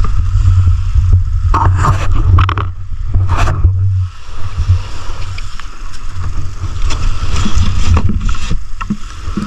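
Small boat's engine running with a steady low rumble, with scattered knocks and clatter of gear being handled on board.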